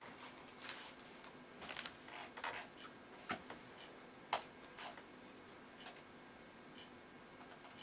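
Faint, irregular clicks and taps of typing on a computer keyboard, a few keystrokes at a time, the loudest about four seconds in.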